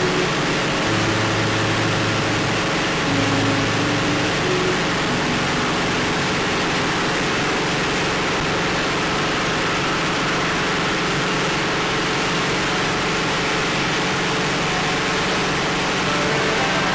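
Steady drone of the Aircam's engines and propellers in cruise flight, mixed with a constant rush of wind.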